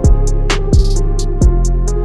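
Background music with a steady beat: a deep kick drum about every 0.7 seconds, with sharp cymbal-like ticks and held melodic notes over it.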